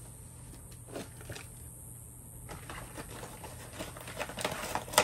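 Faint rustling and light clicks of small items being handled, building in the second half, with a sharper click near the end, over a steady low hum.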